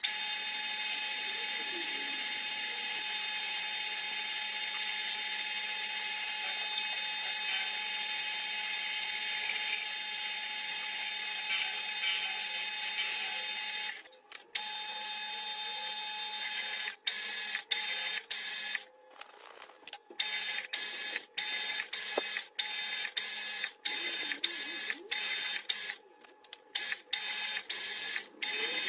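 Metal lathe running while cutting a screw thread: a steady hiss of machine noise with a constant whine. About halfway through, the sound starts breaking off suddenly and coming back, many times over.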